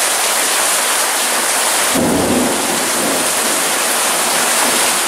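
Heavy rain pouring down steadily, with a low rumble of thunder coming in about two seconds in.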